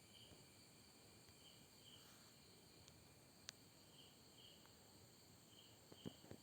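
Near silence: faint room tone with soft high-pitched chirps, often in pairs, every second or two. A single sharp click comes about halfway, and a few small taps near the end.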